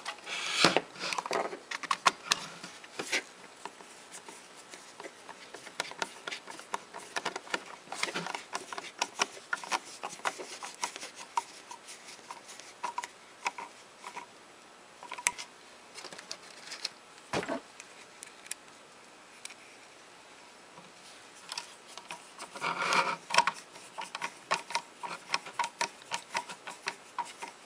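Hand screwdriver turning small screws to fasten a faceplate onto an electronics project enclosure, with the panel being fitted and handled: a run of small irregular clicks and scrapes, in louder clusters about a second in and near the end, and two sharper knocks midway.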